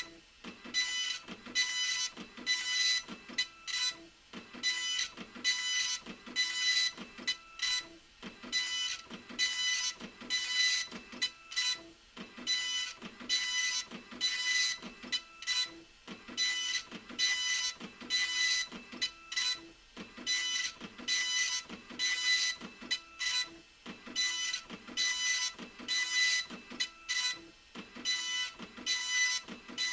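Epson LQ2550 24-pin dot-matrix printer printing: the print head buzzes across the page in short passes, about two a second, each with a high whine and a brief pause as the carriage reverses.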